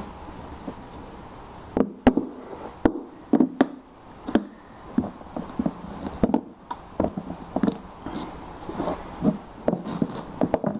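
Motorcycle saddlebag being pushed and shifted against its metal mounting brackets, making a series of irregular knocks and clunks from about two seconds in, as it is worked into line with the mounts.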